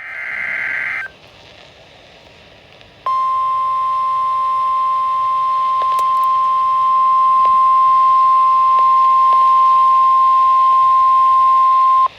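A brief warbling burst of Emergency Alert System data tones (the digital SAME header). After a short pause comes the steady single-pitched NOAA Weather Radio warning alarm tone, held for about nine seconds and then cut off abruptly. The tone signals that a weather warning is about to be broadcast.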